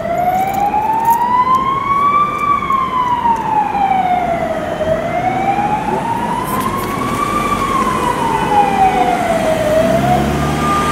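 Ambulance's electronic siren in wail mode, an American-style siren tone sweeping slowly up and down, about two full rise-and-fall cycles of roughly five seconds each. Near the end a heavy vehicle's engine rumbles close by.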